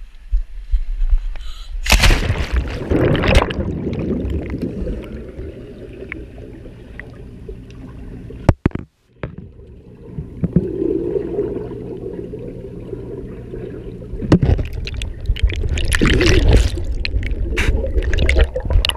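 Swimming-pool water splashing as the camera goes in, about two seconds in, then the muffled, low wash of water heard underwater, with more splashing and churning near the end.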